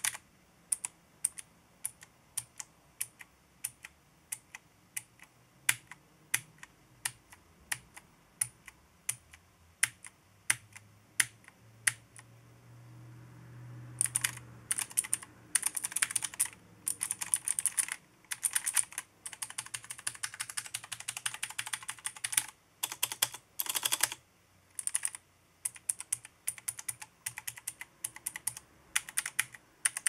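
1STPLAYER STEAMPUNK mechanical keyboard with clicky white switches being typed on: each keystroke a click with the key bottoming and topping out, higher-pitched and milder than blue switches, the O-ring-damped W, A, S and D keys quieter than the rest. Single spaced keystrokes at first, a run of fast continuous typing about halfway through, then spaced keystrokes again.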